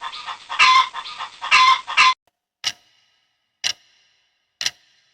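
A recorded bird call plays for about two seconds, with three louder calls in it, then cuts off. It is followed by a clock-tick sound effect about once a second.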